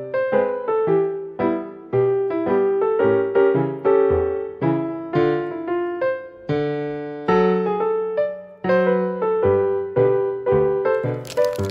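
Background music on a piano-like keyboard: a light melody of struck notes, each fading after it is played, over lower notes. A short noisy burst right at the end.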